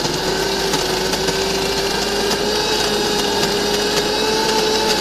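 Electric mixer grinder running steadily as it grinds a thick chhena, sugar and cardamom mixture in its steel jar. The motor whine rises slightly in pitch over a grinding hiss.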